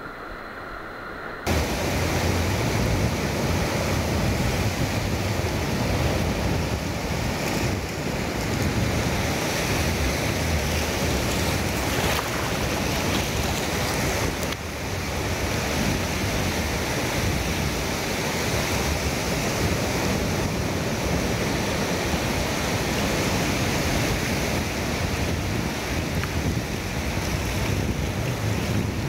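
Surf breaking on a beach with wind buffeting the microphone, a steady rushing noise with a low rumble. About a second and a half in, the sound jumps louder.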